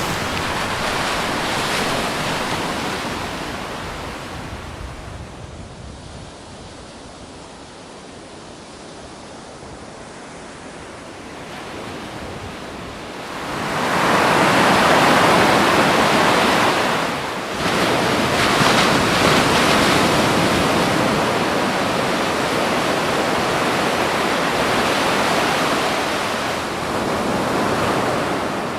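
Ocean surf: waves breaking and rushing in as a steady wash. It dies down for several seconds, then swells into a loud breaking wave about halfway through and stays loud.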